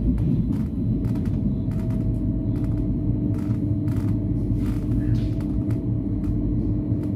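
Electric commuter train running, heard from inside the carriage: a steady rumble of wheels on track under a steady hum, with frequent short sharp clicks.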